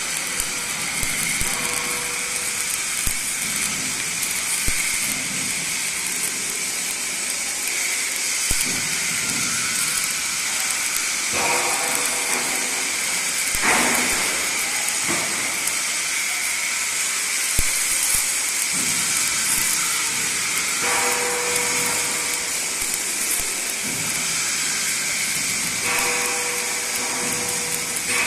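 Electric arc welding: a steady sizzling hiss with scattered sharp crackles, its tone shifting a few times as the arc changes.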